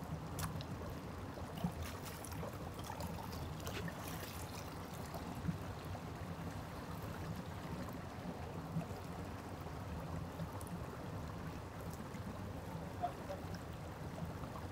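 Small stream running over rocks: a steady, gentle rush of water, with a few faint taps and knocks scattered through it.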